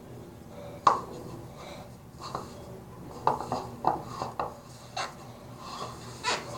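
Stiff, clumpy clay-like slime being squeezed and pressed by hand in a bowl, giving about eight irregular sharp clicks and crackles.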